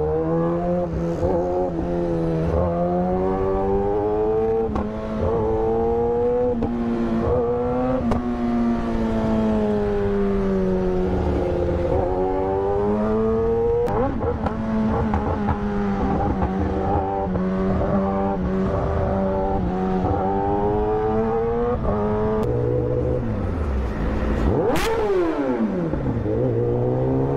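Kawasaki ZX-10R's inline-four engine under way, its note climbing and breaking off again and again as the bike accelerates through the gears. Near the end the pitch falls steeply as the bike slows, with a single sharp crack, then begins to climb again.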